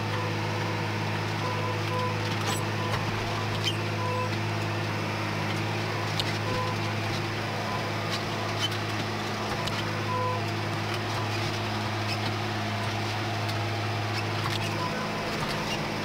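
New Holland T6050 tractor's six-cylinder diesel running at a steady speed, heard from inside the cab. Brief short beeps sound now and then over the engine.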